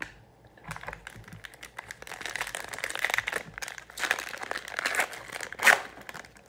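Sports card pack wrapper crinkling as it is handled and torn open, a dense crackling that builds through the middle, with one sharp, loud crackle near the end.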